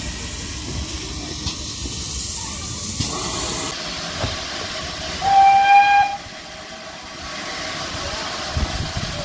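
Steam locomotive with steam hissing steadily; about five seconds in its whistle sounds once, a single steady note lasting about a second.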